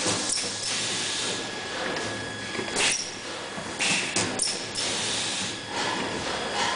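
Wire mesh welding robot running: a continuous welding hiss broken by sharp snaps and short louder bursts at irregular intervals.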